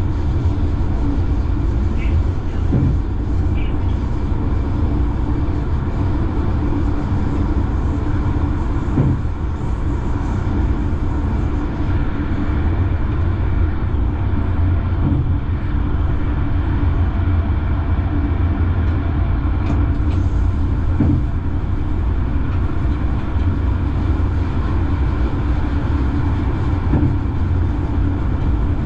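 Light rail train running along the track, heard from on board: a steady rumble of wheels and running gear with a few faint knocks.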